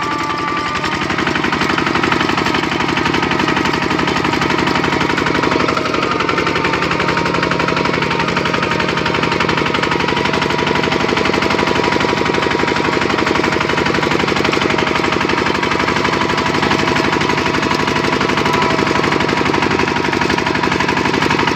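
Single-cylinder diesel engine of a Kubota two-wheel walking tractor running steadily while pulling a trailer, a fast, even chugging that holds the same pace and level throughout.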